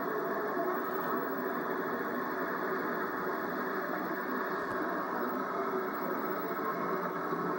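Model trains running on the layout's track: a steady, even rolling rumble with no distinct clicks, heard from a VHS tape played back through a TV speaker.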